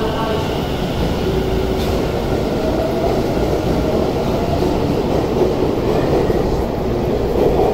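Electric subway commuter train pulling out of an underground platform, its traction motors whining and wheels rumbling on the rails, growing louder near the end as it picks up speed.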